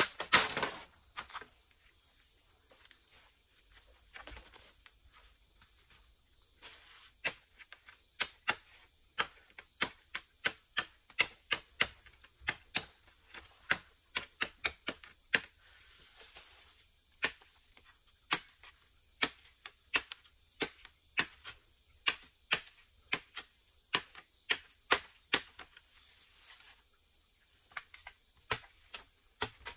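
Sharp knocks or taps, the loudest sound, few at first and then coming a couple each second from about seven seconds in. Behind them an insect repeats a high, slightly rising call about once a second.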